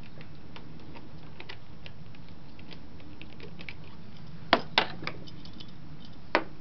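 Screwdriver working a hose clamp on an engine's intake elbow: quick, light, irregular clicking, then louder sharp clacks of metal tools twice about four and a half seconds in and once more near the end.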